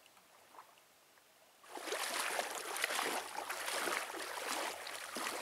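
Near silence, then about a second and a half in, water sloshing and splashing steadily as people wade through shallow lake water.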